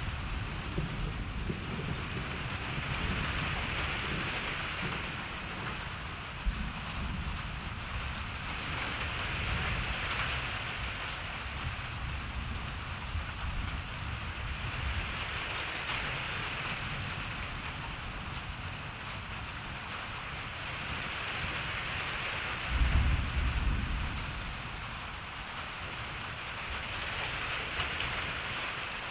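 Steady rain falling in a thunderstorm, its hiss swelling and easing every few seconds over a low rumble of thunder. A louder clap of thunder comes about three-quarters of the way through.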